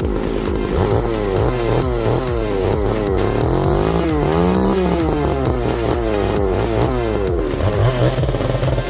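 Chainsaw running at high revs, its pitch dipping and rising again and again as it cuts into limbs.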